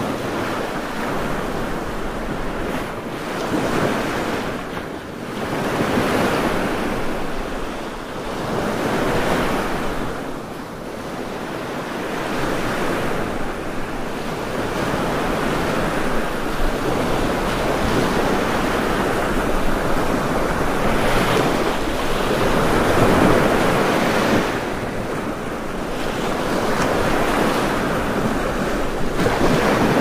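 Rushing water: a dense noise that swells and eases every few seconds.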